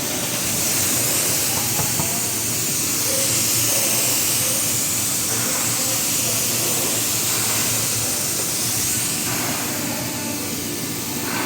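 Compressed-air spray gun hissing steadily as primer is sprayed onto a car door; the hiss eases slightly near the end.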